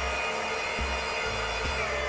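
Background music with a steady beat and a bass line under held synth tones.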